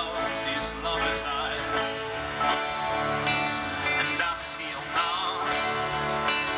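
Live band music at an outdoor concert, heard from within the crowd: strummed guitar with other instruments and singing over the PA.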